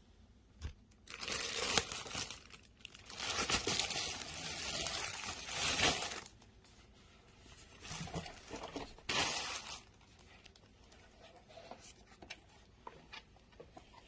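Clear plastic bag crinkling and rustling in several loud bursts as it is pulled off a ceramic tower space heater, followed by a few light clicks and knocks of the heater being handled.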